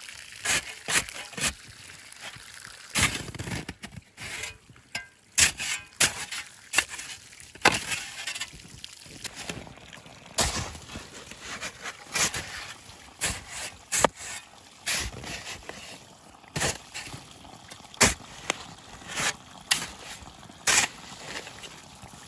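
Metal shovel blade cutting and scooping deep snow, a crunch with each stroke, irregular strokes about one a second, digging a hole down to water under the snow.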